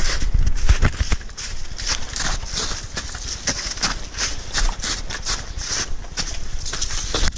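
Hiking boots stepping through a foot of snow at a steady walking pace, about two steps a second.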